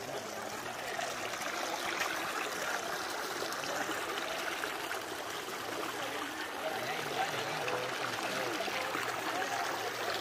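A stream of water running steadily, an even rushing and trickling.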